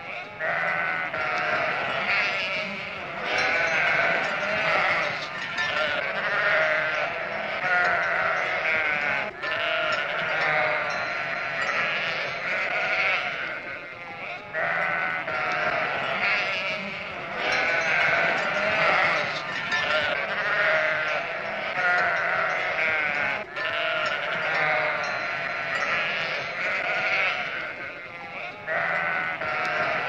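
A flock of sheep bleating, many calls overlapping with barely a pause.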